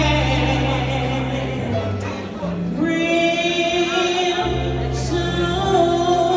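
A woman singing into a microphone, holding long notes with vibrato over instrumental accompaniment with a steady bass line, amplified through a hall's sound system.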